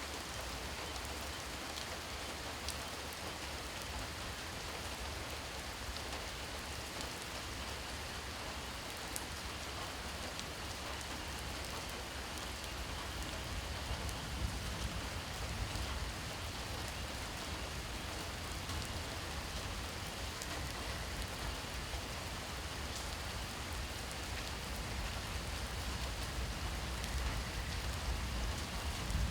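Steady rain falling at night, an even hiss of rain on surfaces with scattered individual drop ticks and a low rumble underneath that swells slightly about halfway through.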